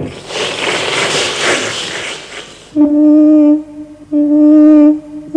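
Applause for the first two and a half seconds or so, then a flute playing long, steady low notes, all on the same pitch, with short breaks between them.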